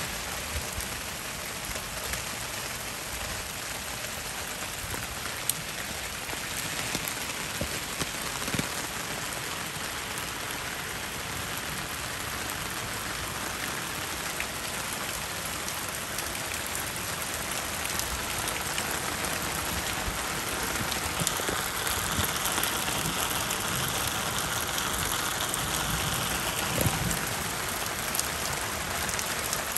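Steady rain falling on the water of a small stream and on wet concrete, an even hiss dotted with sharp drop ticks, growing somewhat louder about two-thirds of the way through.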